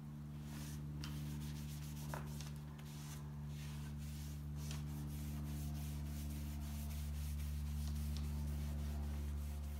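Cotton rag wiping an oil-and-varnish wood finish across a board: soft, irregular rubbing strokes over a steady low hum.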